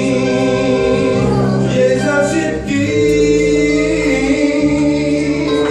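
A man singing a Romani song into a microphone, accompanying himself on a Yamaha electronic keyboard with held chords.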